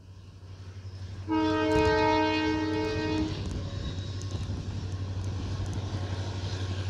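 Locomotive horn of an approaching passenger train, sounded once for about two seconds, starting about a second in, several tones together. Underneath, a steady low drone of the locomotive and the rumble of the train grow louder as it comes closer.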